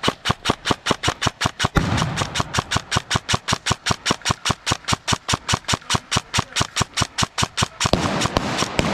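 Airsoft gun firing a long, steady string of sharp shots, about five a second, with a brief hitch about two seconds in.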